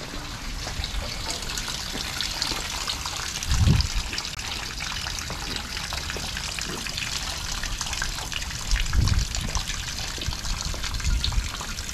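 Steady trickling, running water, with two brief low rumbles about four and nine seconds in.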